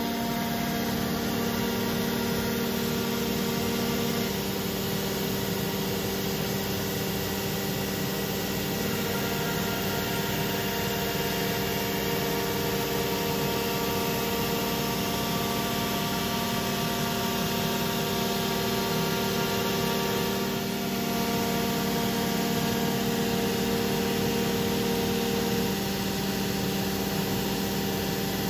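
Techno LCX CNC router running a carving job: the HSD electro spindle cuts MDF with a V-bit, a steady machine hum carrying a few even tones that shift slightly now and then as the tool moves along the cut.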